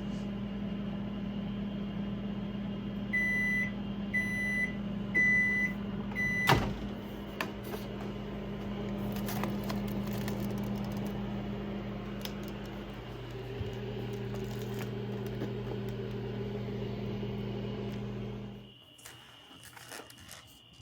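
Microwave oven running with a steady electrical hum. Its buzzer beeps four times, evenly about a second apart, a few seconds in, followed by a sharp click. The hum shifts about two-thirds of the way through, then cuts off a couple of seconds before the end.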